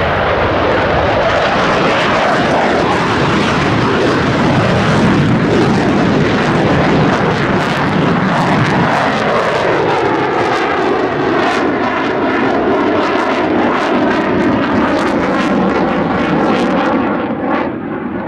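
F-15J Eagle's twin turbofan jet engines at full power with afterburner, taking off and climbing out: a loud, continuous jet roar. From about halfway through, the pitch glides steadily downward as the jet passes and pulls away.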